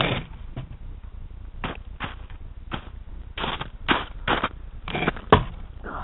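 About a dozen short, irregular crunches and clicks close to a Bixler RC plane's onboard camera, with the motor silent, as the plane lying in the snow is handled and picked up; the loudest click comes about five seconds in.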